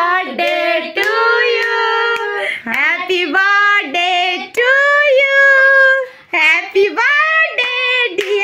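A woman singing unaccompanied in a high voice, with long held notes in short phrases.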